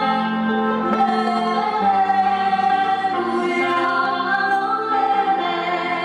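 Music: a singing voice holding long notes over an instrumental backing.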